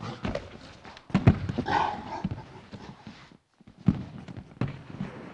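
Wrestlers' shoes scuffing and stamping on a wrestling mat and bodies thudding onto it as a takedown is drilled, the loudest thud a little over a second in. A short grunt comes about two seconds in.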